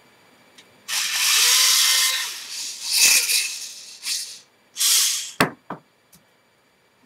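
Homemade K'NEX claw machine's motors and gears running in several bursts as the joystick is worked, followed by a couple of sharp clicks.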